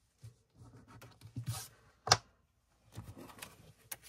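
Soft scratching and paper rustling of hands at work: a scratch-off card rubbed clear and a stack of dollar bills taken out of a plastic cash envelope, with one sharp click about two seconds in.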